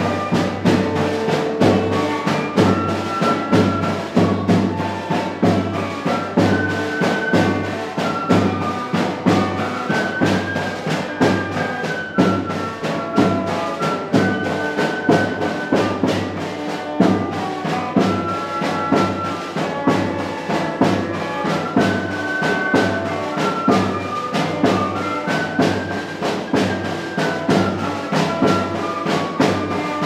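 Music with brass and drums: a brass melody over a steady drumbeat.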